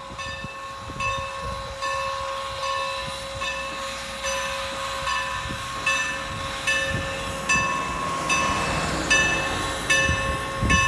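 Steam locomotive's bell ringing steadily, about one stroke every 0.8 s, its hum carrying between strokes, as Strasburg Rail Road No. 475, a 4-8-0 steam locomotive, pulls out; the engine's low exhaust beats sound underneath, strongest near the end.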